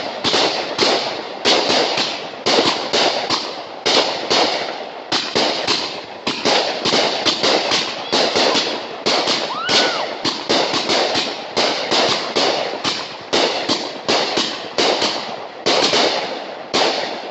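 A long, unbroken barrage of fireworks bangs, about two to three a second, each followed by a short crackle. A brief whistle rises and falls near the middle.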